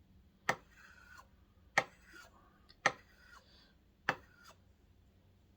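Curved steel carving blade worked on diamond-coated abrasive paper stuck to a hardwood block, sharpening the outside bevel to take off the burr. Four short strokes about a second apart, each starting with a sharp tick and followed by a brief scrape.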